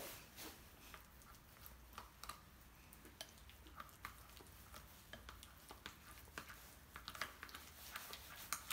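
Faint, irregular small clicks and scrapes of a plastic spoon stirring mashed avocado in a bowl.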